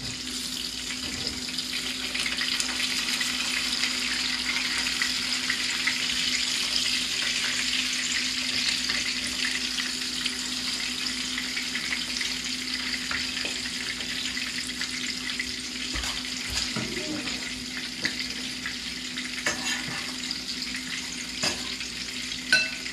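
Coconut-crusted fish fillets sizzling in shallow oil in a frying pan: a steady hiss, with a low steady hum underneath. A few light knocks come near the end.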